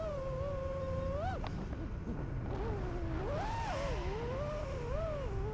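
FPV quadcopter's brushless motors and propellers whining, steady at first, then swooping up and down in pitch with throttle changes from about two seconds in.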